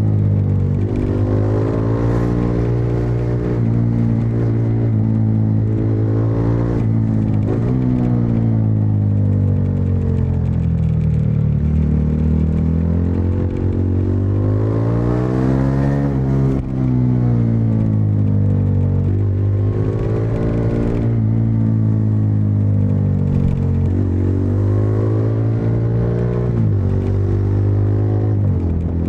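Bajaj Dominar 400's single-cylinder engine and exhaust on the move, its pitch climbing and dropping again and again as the bike accelerates, shifts gears and eases off.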